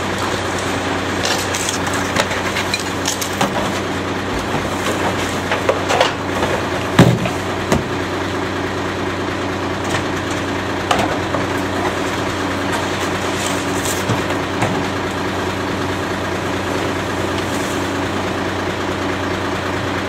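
Rear-loader garbage truck's engine idling steadily while trash cans are tipped into its rear hopper: irregular clatters and knocks, the loudest about seven seconds in, as bags, branches and yard trimmings drop in.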